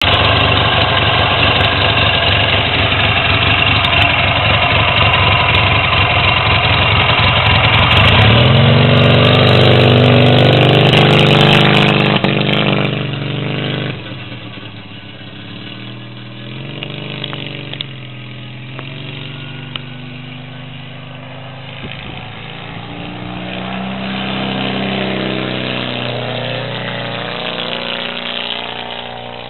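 NOS twin-cylinder four-stroke military standard engine of a small scooter running steadily close by, then rising in pitch as it pulls away about eight seconds in. The engine note then fades with distance and swells again near the end as the scooter comes back past.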